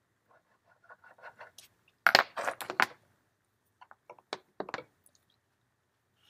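Felt-tip marker drawing on paper: faint scratchy strokes, then a louder quick run of strokes about two seconds in as a scalloped circle is drawn, followed by a few short sharp clicks about four to five seconds in.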